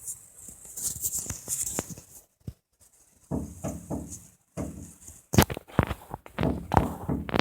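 Woodpecker pecking at the wood of a porch, going after bee holes: irregular knocks with pauses, the sharpest few strokes coming in the second half.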